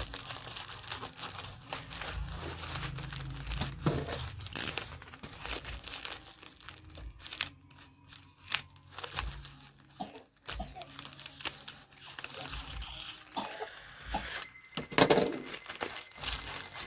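Parcel packaging crinkling and tearing as it is handled and opened, in irregular rustles and crackles, with one louder burst near the end.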